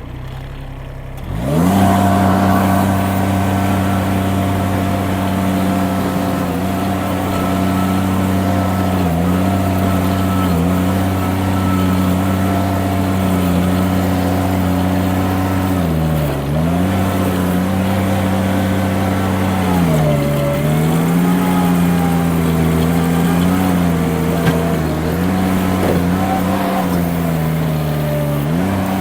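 Mini skid steer's diesel engine throttled up about a second and a half in, then running at high revs, its pitch dipping under load several times as the machine pushes and turns.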